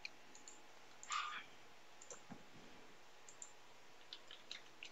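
Faint computer mouse clicks, a few scattered single clicks, with one brief soft noise about a second in.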